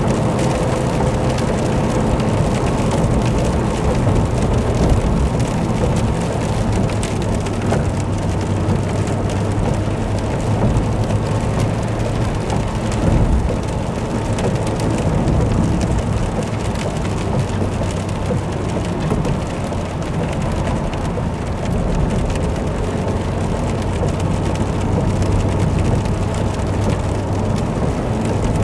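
Car driving in rain, heard from inside the cabin: a steady hiss of rain and wet tyres on the road over a low, even engine drone.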